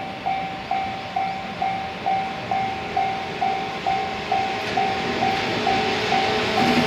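Railway level-crossing warning bell ringing in an even rhythm, about two strikes a second. An approaching freight train's rumble swells up under it in the second half.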